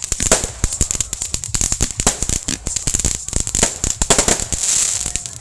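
Fireworks going off in a rapid, irregular run of sharp cracks and pops, many a second, with a crackling hiss that swells near the end.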